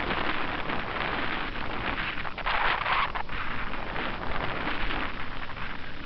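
Strong wind buffeting the microphone in gusts, a rough rushing noise with a low rumble, loudest about halfway through.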